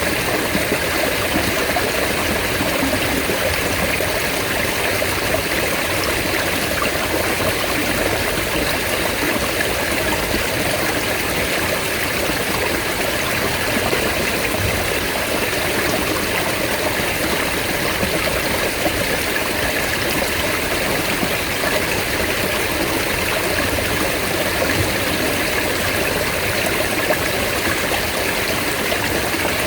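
Mountain stream flowing steadily: an even, unbroken rush of running water.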